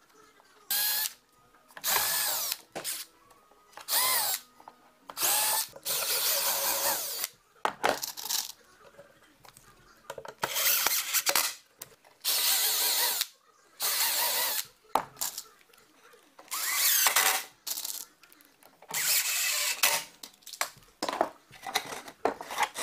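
Cordless drill-driver driving screws into plywood, about a dozen short bursts of a second or so each, the motor's pitch rising and falling within each run.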